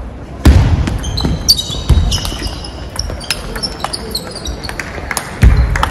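Table tennis rally: the ball clicking off paddles and table again and again, with a few heavy thumps, the loudest about half a second in and near the end, and short high squeaks in between.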